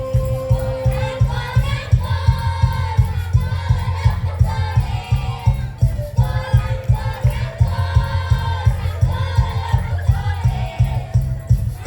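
A group of voices singing a villancico (Spanish Christmas carol) over accompaniment with a steady, pulsing bass beat. The singing comes in about a second and a half in.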